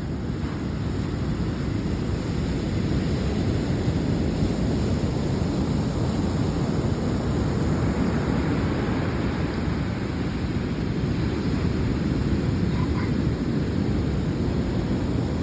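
Steady wash of ocean surf mixed with wind noise on the microphone, swelling slightly around the middle.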